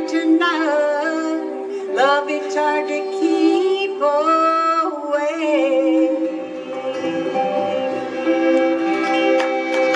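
Acoustic bluegrass band of guitar, mandolin, upright bass, dobro and fiddle playing the closing bars of a song, with sliding fiddle and dobro notes, just before the applause.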